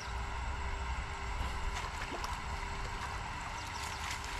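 Cast net being hauled in by hand out of a river, with a few faint water splashes and drips over a steady low outdoor rumble.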